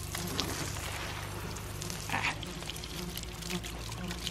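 Water spraying and splattering onto grass from an open joint in a ram pump's plastic drive pipe as the pipe ends are pushed back together.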